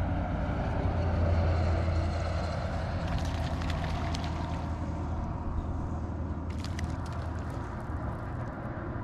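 Bass boat's bow-mounted electric trolling motor humming steadily under a wash of water and air noise, with clusters of clicks about three seconds in and again near seven seconds.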